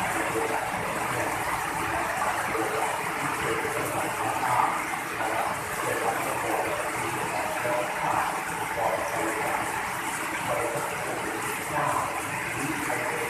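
Heavy rain falling steadily, with water pouring off the edge of a roof.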